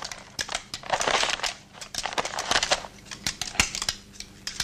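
Beads of a wooden Russian abacus (schoty) being flicked during counting: a run of sharp, irregular clacks, with two short stretches of rustling about a second and two and a half seconds in.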